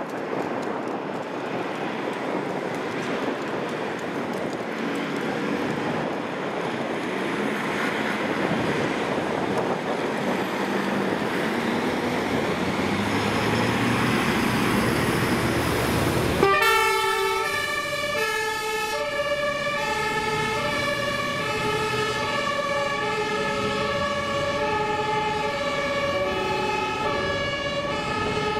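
Fire engines' diesel engines pulling out and accelerating, a dense noise that swells over the first half. About halfway through it cuts abruptly to German two-tone sirens (Martinshorn) of more than one emergency vehicle, sounding out of step with each other in alternating high and low notes.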